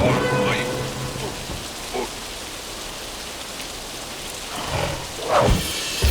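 Steady rain as a cartoon sound effect, with a few short louder sounds over it: a thump at the start and quick sweeping sounds about five seconds in.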